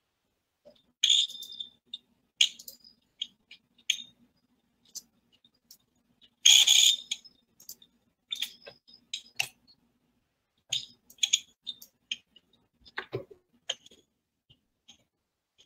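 Irregular clicking and tapping of a computer keyboard and mouse, heard through a video-call microphone, over a faint steady hum. A louder clatter comes about six and a half seconds in.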